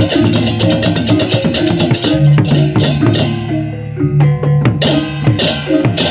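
Balinese baleganjur gamelan playing: fast interlocking clashes of cengceng hand cymbals over kendang drums and bronze gongs. About three seconds in the rapid cymbal pattern breaks off, leaving a low ringing gong and pitched gong notes, cut by a few loud cymbal crashes.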